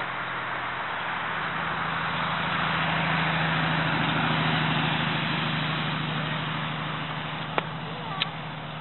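A motor vehicle going by: a low engine hum and noise swell to a peak about four seconds in, then slowly fade. Two short clicks near the end.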